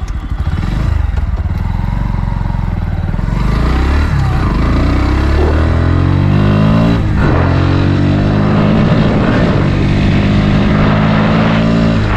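Single-cylinder engine of a Bajaj Pulsar NS motorcycle under way, its revs climbing, dropping sharply at a gear change about seven seconds in, then climbing again.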